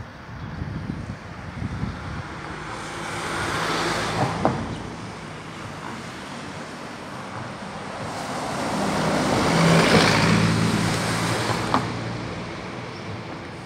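Road traffic: two vehicles pass close by, one about four seconds in and a louder one about ten seconds in, each swelling up and fading away, the second with an audible engine hum. Wind buffets the microphone briefly at the start.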